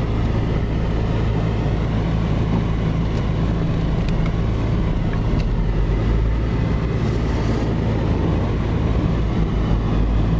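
A car driving, heard from inside the cabin: a steady engine hum with tyre and road noise.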